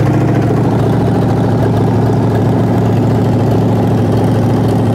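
Carbureted Ford 302 small-block V8 running steadily on an engine stand.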